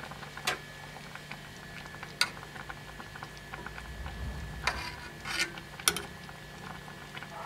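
A metal spoon clinks against a stainless steel saucepan several times, sharp separate clicks, as foam is skimmed off buckwheat simmering in water. A faint steady hum runs underneath.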